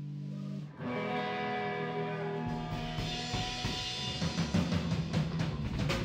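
Alternative country band playing live on two electric guitars and a drum kit. A held guitar chord breaks off under a second in and new chords ring out; the drums come in about halfway with bass drum and cymbal hits, building up.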